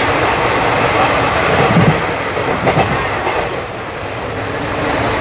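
Loud, steady running noise of an express train at speed, wheels on rail, heard at an open coach door while another passenger train passes close on the next track. The noise eases a little about three and a half seconds in, once the passing train has gone by.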